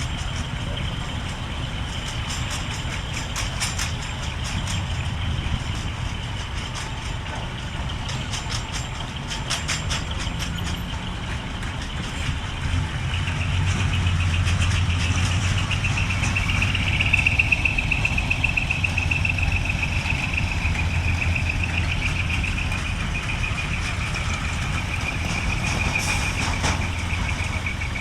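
Large truck's diesel engine running steadily, getting louder about halfway through, with a wavering high whine over it.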